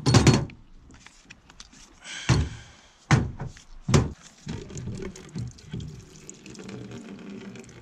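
Several sharp knocks as a wrench and a fuel nozzle are worked loose against metal, then a steady pour of red-dyed fuel draining out of the disconnected fuel hose into a plastic bucket.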